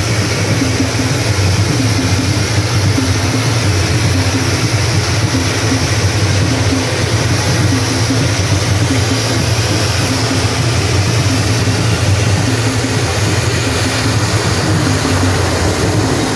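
Twin-engine turboprop aircraft running at idle on the ground, a steady low engine drone with a high turbine hiss over it.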